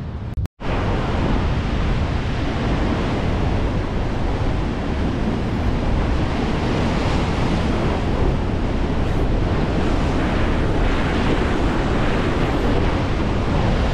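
Heavy surf breaking and washing over rock ledges, a steady loud rush, with wind buffeting the microphone.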